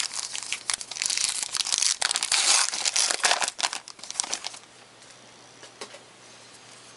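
Foil wrapper of a trading-card pack being torn open and crinkled for about four and a half seconds, then a few faint clicks.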